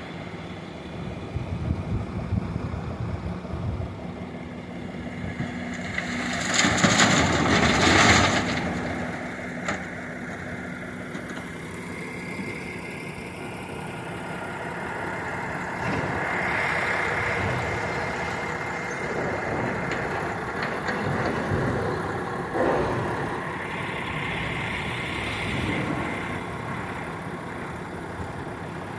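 Volvo excavator and Volvo tipper truck diesel engines running steadily. A loud burst of noise lasting about two seconds comes about six seconds in, as a bucketload of rock drops into the tipper body. The engine note rises and falls a few times later on as the excavator works.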